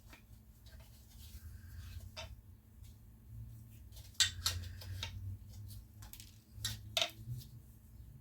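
Scattered light clicks and knocks of metal engine parts and hand tools being handled while a Tecumseh engine's rod and piston are worked loose, busiest from about four to seven seconds in, over a steady low hum.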